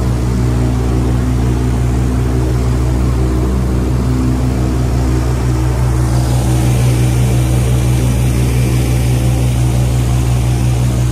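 Boat engine running steadily at cruising speed, with water and wind rushing past the hull; the hiss of spray grows louder about halfway through.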